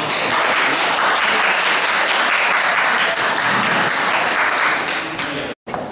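Applause from a small crowd of people clapping, cutting off abruptly near the end.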